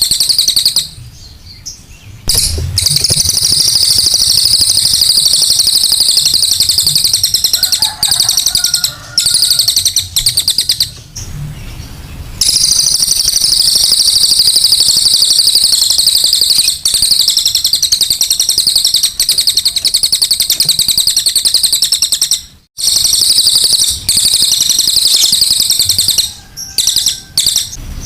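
A cililin songbird singing: long runs of a rapid, high-pitched, shrill trill, broken by a few short pauses.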